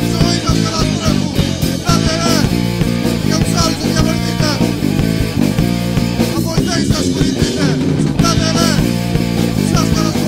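Hardcore punk band recording playing: electric guitar over a steady beat of drums.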